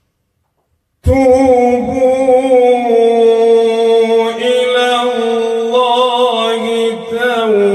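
A man chanting Quran recitation in the melodic tajwid style, starting about a second in with one long drawn-out vowel held on sustained notes that step between pitches and slide down near the end.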